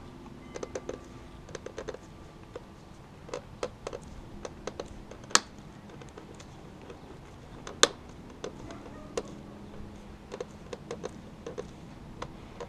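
Irregular light plastic clicks and taps from handling replacement mirror glass and its backing plate, fitting its heater wire connectors and clip tabs, with two sharper snaps about five and eight seconds in.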